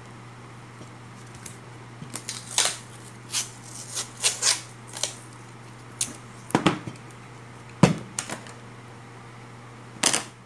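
Masking tape being pulled off the roll and wrapped around a wound transformer bobbin: a string of short crackling tears and handling clicks, then a sharper clack near the end as the bobbin is set down on the table.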